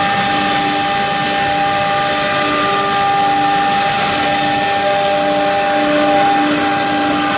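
Four-spindle CNC nesting router running, a steady whine of several tones over a loud hiss.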